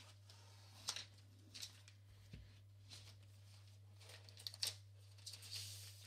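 Faint crinkling of a thin plastic protective film being handled and pulled off a laptop, with a few light ticks as the laptop is lifted and set down on a desk. A steady low hum underneath.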